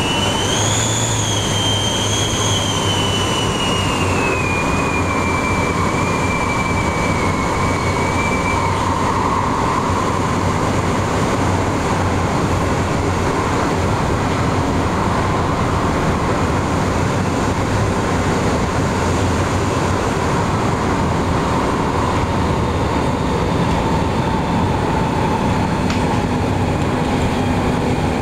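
MTR Tung Chung Line Adtranz-CAF electric multiple unit running at speed, heard inside the passenger car as a loud, steady rumble. A high whine falls in pitch over the first several seconds and then fades out.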